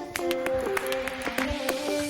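Background music: held pitched notes that change in steps, over a regular light beat.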